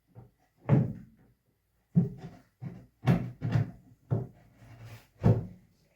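Glued wooden shelf pieces being knocked together into their joint: about eight irregular wooden knocks and thuds as the piece is driven home.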